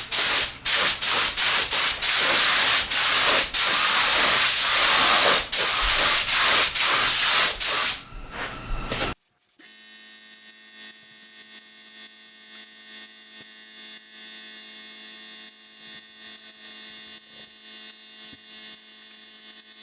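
Paint spray gun hissing as base coat is sprayed, in runs broken by short gaps where the trigger is released. It stops about eight seconds in, leaving a faint steady hum.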